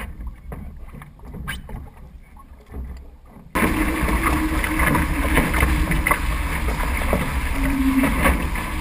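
Wind rumbling on the microphone over light water sounds from a nearly stopped Weta trimaran, then, after an abrupt cut about three and a half seconds in, loud steady rushing and splashing of water past the hull as the trimaran sails at speed.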